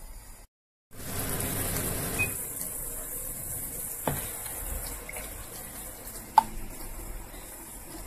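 Sugar-and-water syrup for apricot jam bubbling at a boil in a stainless steel pot, a steady sizzling hiss after a brief silent cut. There is a small click about four seconds in and a sharper click about six seconds in.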